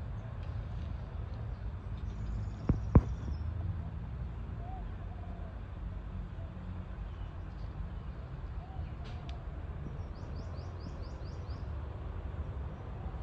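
Outdoor ambience: a steady low rumble with faint bird chirps, including a quick run of high chirps near the end. Two sharp clicks come close together about three seconds in.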